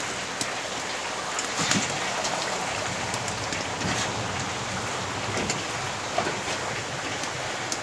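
Dal with potatoes and eggs bubbling and sizzling steadily in an iron kadai, freshly topped up with hot water. A few light clicks and scrapes come from a metal spatula stirring it.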